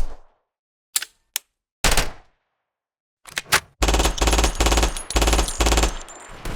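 Gunshot sound effects: a single shot, two short clicks, a second shot, then a couple of quick shots leading into a burst of automatic fire lasting about two seconds, which dies away in a reverberant tail.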